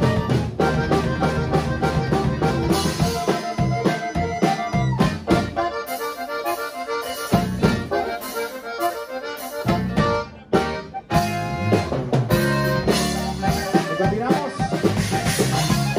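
Live conjunto band playing an instrumental passage led by a button accordion's quick runs, with acoustic guitar, electric bass and drums. The bass and drums drop out for a few seconds around the middle, there is a short break, and then the full band comes back in.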